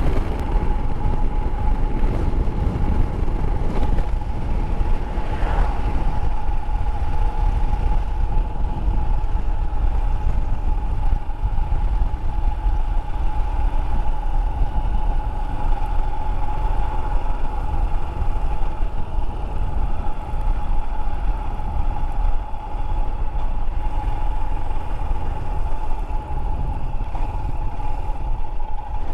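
Motorcycle riding along at a steady speed: the engine runs with one steady tone, over a constant rumble of wind on the onboard microphone.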